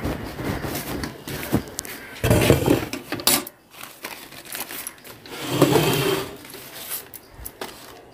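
Steel milk pail being handled: its wire handle rattles and clinks against the pail amid rustling and bumps, with two louder stretches of handling noise about two and a half and six seconds in.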